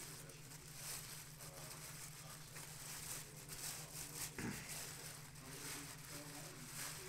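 Faint handling noises, light rustling and small clicks, over a steady low electrical hum, with one soft thump about four and a half seconds in.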